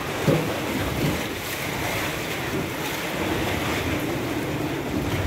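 Seawater surging and sloshing through a rock sea cave as waves wash in at a rising tide, splashing against the rock walls.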